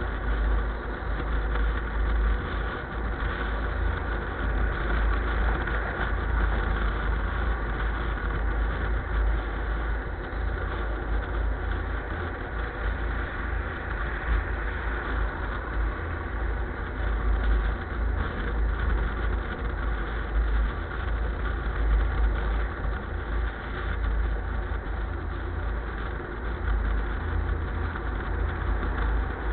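A steady low rumble of a running vehicle that continues without a break.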